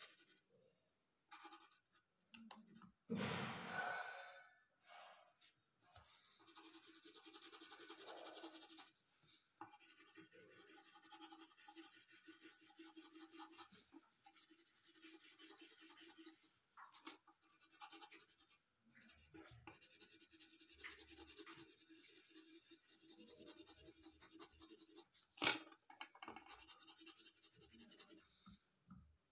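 Faint scratching of a colored pencil shading back and forth on paper. A louder noise comes about three seconds in, and a single sharp click near the end.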